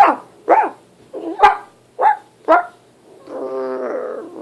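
A person imitating a dog with their voice: five short, high yelping barks, then one longer held whine near the end.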